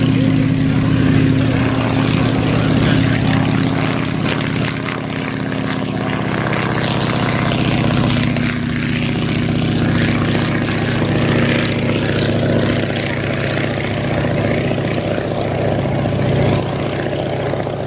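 Boeing-Stearman PT-17 Kaydet biplane's radial engine and propeller running, a steady loud drone as the aircraft takes off and flies low over the runway.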